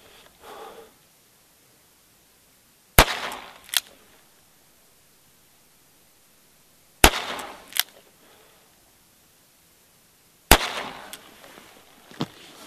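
.45 Colt single-action revolver fired three times, about four seconds apart, in slow aimed fire. Each loud shot trails off quickly and is followed by a fainter sharp click under a second later.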